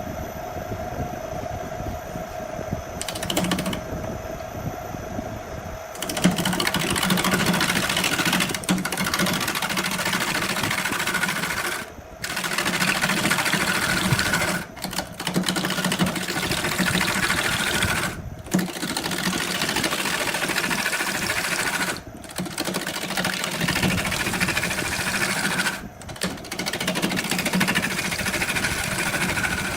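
Power tool working wood: a motor whine at first, then, from about six seconds in, a louder rough cutting or sanding noise that breaks off briefly every few seconds.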